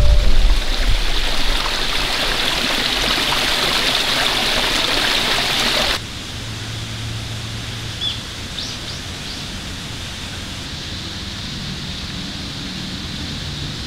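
A steady rushing hiss of water that stops abruptly about six seconds in, leaving a quieter outdoor background with a few short bird chirps.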